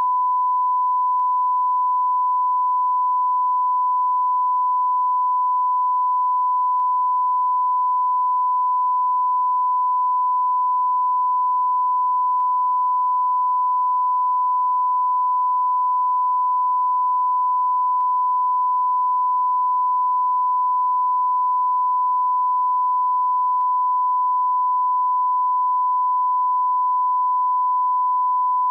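Bigo Live beep sound effect: one continuous pure beep tone, held at a single steady pitch and level without a break.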